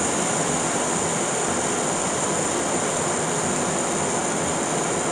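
Thinly sliced steak sizzling in hot vegetable oil in a pot on medium heat: a steady frying hiss.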